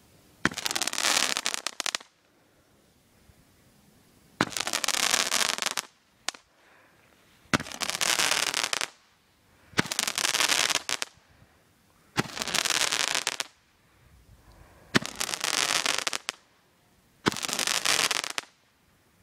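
Roman candle firing seven shots, roughly two to three seconds apart. Each shot is a sharp pop followed by about a second and a half of loud hissing.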